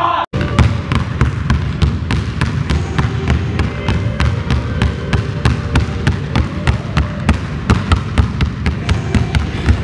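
Basketballs dribbled hard and fast on a hardwood gym floor, about four to five bounces a second, echoing in the gym.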